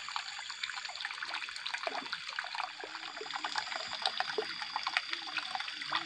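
Water trickling into a small stream, a steady light splashing full of small drips.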